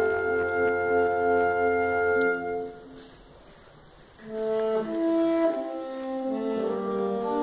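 Saxophone quartet, soprano to baritone saxophone, playing a held chord that breaks off about two and a half seconds in. After a pause of about a second and a half the quartet comes back in with changing notes.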